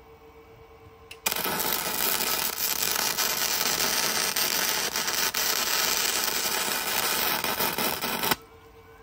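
MIG welder arc crackling steadily as one weld bead is run on steel, starting abruptly about a second in and cutting off sharply near the end.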